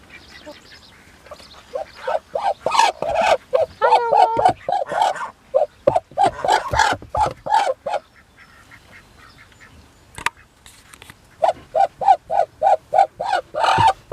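Duck quacking in two runs of short, evenly spaced quacks, about three a second. The first run lasts several seconds; the second starts after a pause of a few seconds, near the end.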